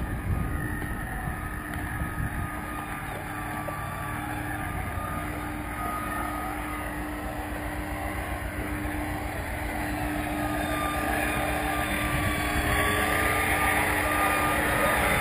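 Steady machinery hum with a constant drone, over wind rumbling on the microphone. The hum grows louder in the last few seconds.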